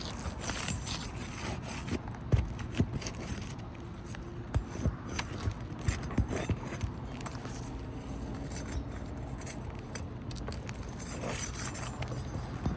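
Hand tools scraping and clicking against asphalt roof shingles as staples are pried out to free a shingle, with a cluster of sharp clicks and knocks in the middle, over a steady low background rumble.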